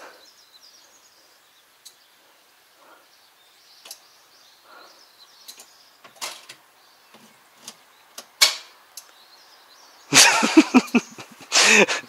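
A stalled Kubota MZ755 tractor stays silent, its engine not cranking. Only scattered small clicks and knocks around the cab are heard, with a sharper knock about two-thirds of the way through, faint high chirps like birds, and a person's voice in two short bursts near the end.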